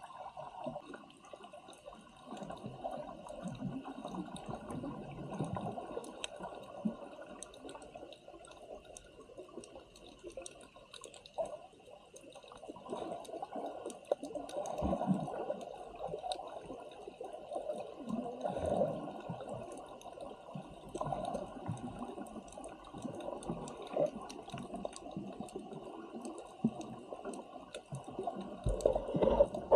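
Water sloshing and gurgling close around the microphone in uneven swells, with a faint steady high hum underneath.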